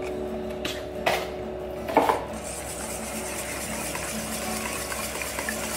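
Wire whisk beating cottage cheese into beaten eggs in a stainless steel bowl, the wires scraping and clicking against the metal. Two louder knocks come about one and two seconds in as the cottage cheese goes into the bowl.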